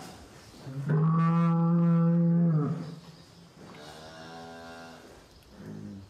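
Holstein cow in labour mooing: one long, loud, low moo about a second in, then a fainter, drawn-out one.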